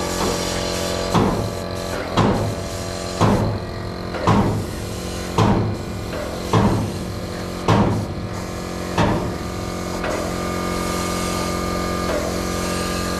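Steady machine hum with a hiss over it, from a compressed-air spray-painting rig at work. Over it, about nine sharp knocks land roughly once a second, like hammer blows, and stop about ten seconds in.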